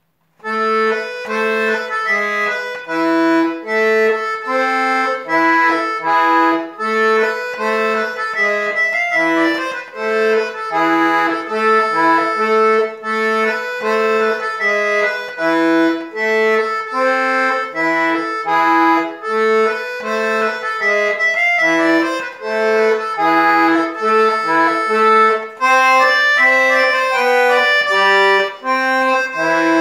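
Piano accordion played solo, starting about half a second in: a dance tune in short detached notes over a left-hand accompaniment of low bass notes alternating with chords.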